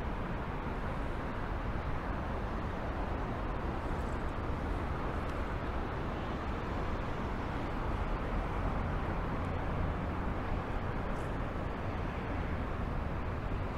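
Steady outdoor background noise: an even rushing hiss with a low rumble underneath, swelling slightly about eight seconds in.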